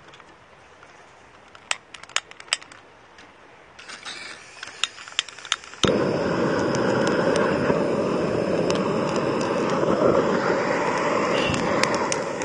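A few sharp clicks, then about six seconds in a loud, steady rushing noise starts abruptly and keeps going.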